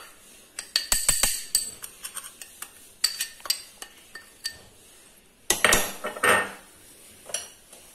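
A metal spoon clinking and tapping against the rims of a small bowl and a stainless steel mixing bowl as powder is scraped out, in groups of sharp clicks, with a longer scrape past the middle.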